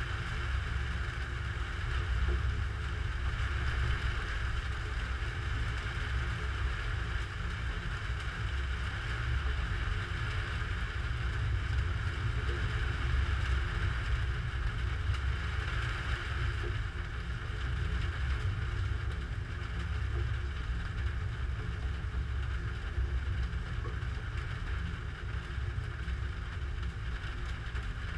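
Steady, muffled low rumble and hiss of a storm, heard through a GoPro camera with no sharp thunderclap.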